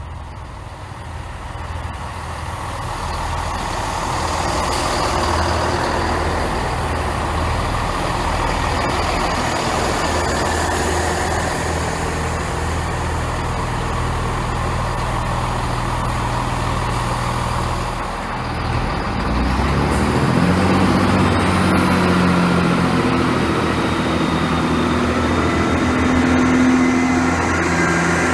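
Diesel train running past, growing louder over the first few seconds with a steady low engine hum. About twenty seconds in, the engine note changes and rises in pitch.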